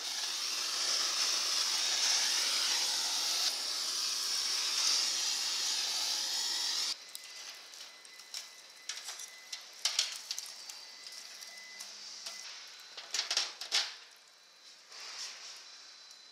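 Pork neck sizzling on a charcoal grill: a loud, steady hiss that cuts off abruptly about seven seconds in, leaving a quieter sizzle with scattered crackles and pops.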